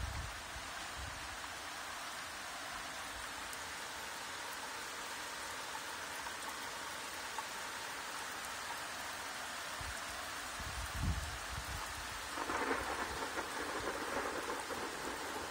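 Rain falling steadily, growing heavier and louder about three quarters of the way through. A short low rumble comes just before that.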